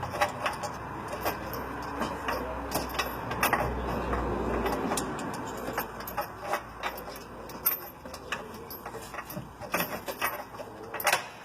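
Power drill running steadily for about five seconds, driving in a rock-slider mounting bolt, with scattered metal clicks and clinks of tools and hardware throughout.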